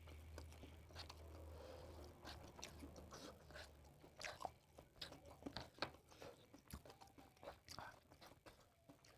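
A person chewing and crunching food close to the microphone, with irregular wet clicks and crackly bites. A low hum runs underneath and stops about four seconds in.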